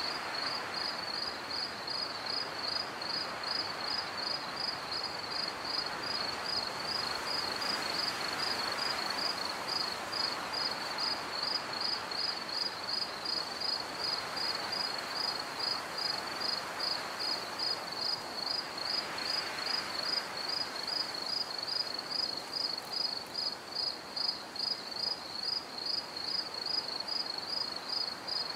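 Cricket chirping steadily, a high pulsing trill about two to three times a second, over a soft rushing background that slowly swells and fades.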